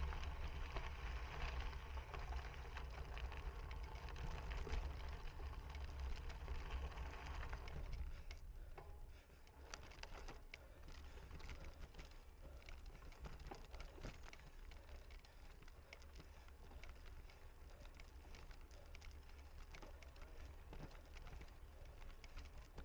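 Wind buffeting the microphone over the rattling and knocking of a cyclocross bike ridden over rough ground. The wind rumble drops off about eight seconds in, leaving scattered clicks and rattles.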